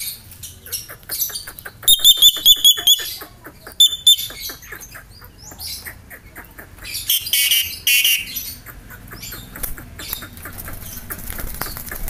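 Caged Javan myna calling: a loud run of high, quickly repeated whistled notes about two seconds in and again briefly near four seconds, then a harsh rasping squawk around seven to eight seconds. A rapid series of clicks runs under the first half.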